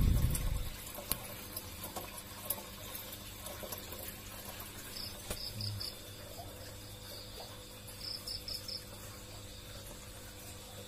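A low thump at the start, then insects chirping: two short runs of about four quick pulses each, around five and eight seconds in, over a faint steady hum.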